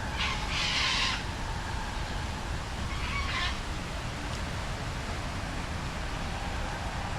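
Steady rain falling, with a bird giving two harsh, raspy calls: one in the first second, and another about three seconds in.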